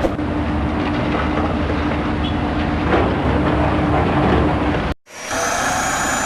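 Bulldozer sound effect: a diesel engine running with a steady clatter, cutting off suddenly about five seconds in. After a brief gap, a different sound with a high, steady whistle starts.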